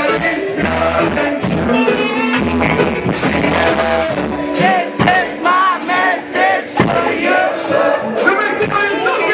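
Reggae band playing with a singer, over a steady bass line and regular drum hits.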